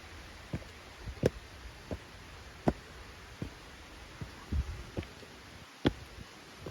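Footsteps walking, a series of irregular thumps about once a second over a low rumble.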